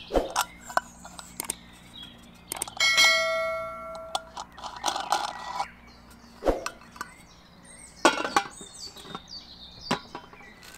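Clicks, taps and knocks of the Omnia stovetop oven's metal lid and aluminium pan being handled as the knob is fitted and the lid is set onto the pan. About three seconds in the lid rings like a bell for a little over a second, and a short scrape follows.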